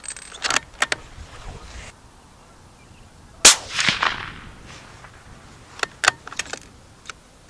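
A .204 Ruger bolt-action rifle (Savage LRPV) fires one shot about three and a half seconds in: a sharp crack with a short ringing tail. A few sharp clicks come before it and again a couple of seconds after it.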